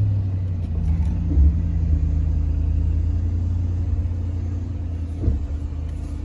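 The supercharged 6.2-litre V8 of a Ram 1500 TRX running steadily at low revs as the truck crawls up an off-road climb. Two short thumps come about a second and a half in and again near the end.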